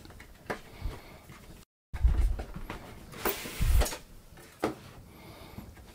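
Cardboard graphics-card box being opened by hand: a few light clicks and knocks, then dull thumps and a scraping, sliding rustle of the packaging around the middle.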